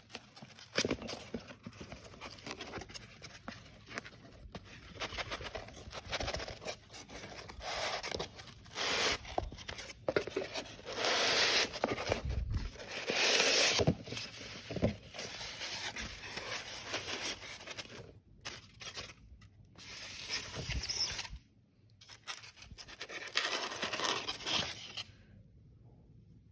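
Parcel packaging being torn open and handled: tearing, crinkling and scraping, loudest about halfway through, stopping near the end.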